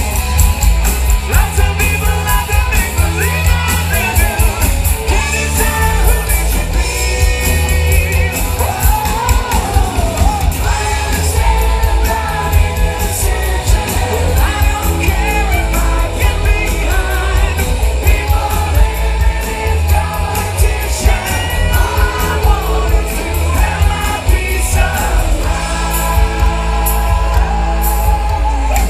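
Live rock band playing a song in concert: a male lead singer sings over electric guitars, bass and drums, with a heavy bass layer throughout.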